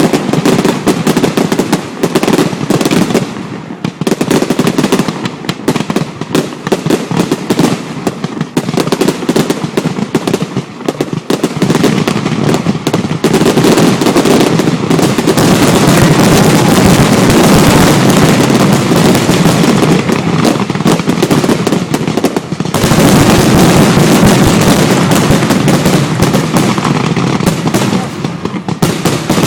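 Aerial fireworks going off in a loud, rapid, almost unbroken barrage of bursts and crackling, typical of a finale.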